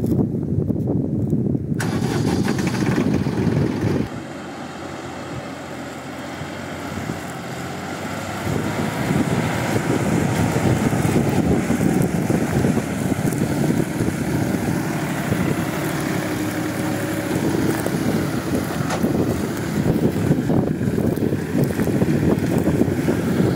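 Massey Ferguson 9563 Smart tractor's diesel engine running, close at first. After a drop in level about four seconds in, it runs under load, pulling a 24-disc harrow through dry stubble.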